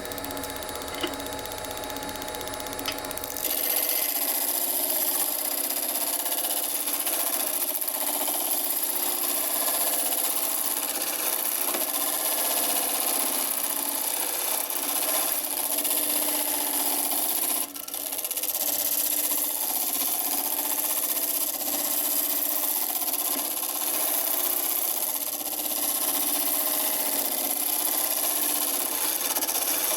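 A woodturning lathe running, with a steady hum at first. From about three and a half seconds in, a steady high hiss of something rubbing against the spinning driftwood-and-resin blank takes over. The hiss breaks off briefly just before halfway.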